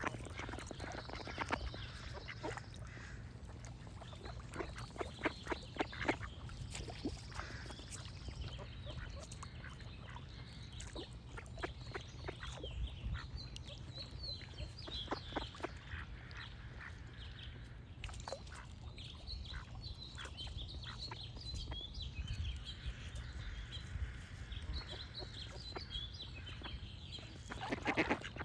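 Ducks quacking in runs of short calls, busiest in the first several seconds and again at the end, while small birds chirp high above. A steady low rumble runs underneath.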